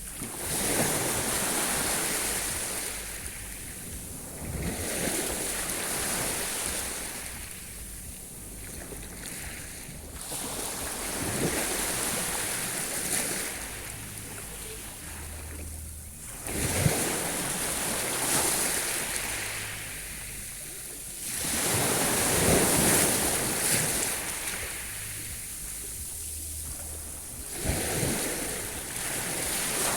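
Sea waves breaking on the shore and washing back, in surges every four to six seconds, with some wind on the microphone.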